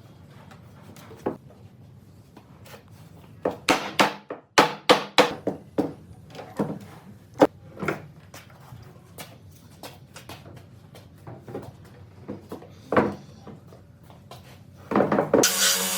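Wood and hand tools being handled: a run of sharp clicks and knocks, then scattered single knocks. Near the end a motorised whirring starts abruptly and runs steadily.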